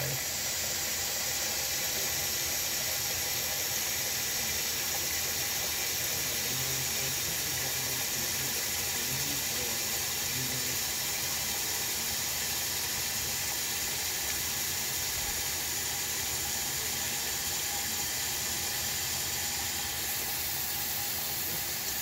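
Hot water running from a bathroom sink tap in a thin stream into the stoppered basin, filling it: a steady hiss of splashing water.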